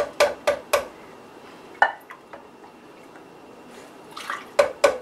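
Skimmed cream poured from a cup into a plastic Cuisinart food-processor bowl: dripping, with sharp taps of the cup against the bowl. There are four quick taps at the start, one about two seconds in, and a cluster near the end.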